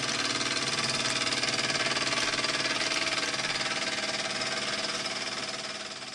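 Small gas-fired model steam engine on a Meccano steam dog cart running steadily with no load, its wheels turning free, a fast even mechanical beat with a hiss over it. The sound fades away near the end.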